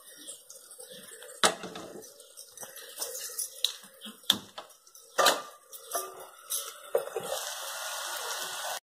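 Metal kadai and utensils clattering on a gas stove, with several sharp knocks; about seven seconds in, a steady sizzle begins as onions and green chillies fry in the kadai.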